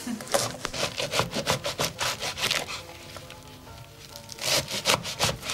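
Kitchen knife chopping leeks into short lengths: the blade cuts through the leek and taps the board beneath, about four cuts a second, with a short pause about three seconds in before the chopping resumes.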